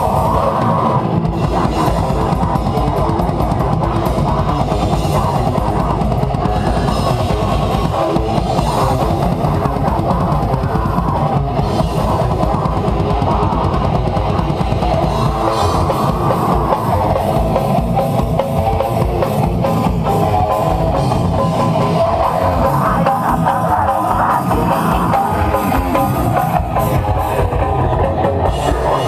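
Live deathcore band playing: electric guitar over a drum kit with a rapid bass drum.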